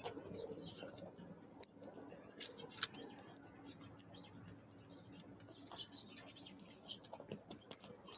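Small songbirds calling faintly, with scattered short high chirps and a few sharp clicks.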